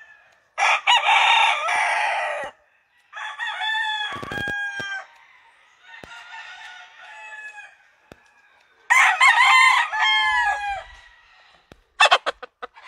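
Roosters crowing four times in long drawn-out crows, the first and last loudest and one in the middle faint. Near the end comes a quick run of sharp clicks from scissors snipping feathers.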